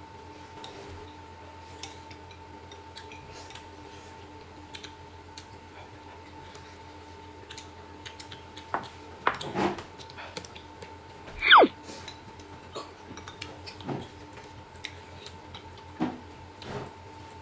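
Chopsticks and spoons clinking and knocking against glass bowls and a metal hot pot, light and scattered over a steady faint hum, with a few louder knocks about nine seconds in. About eleven seconds in comes the loudest sound, a short whistle-like tone falling steeply in pitch.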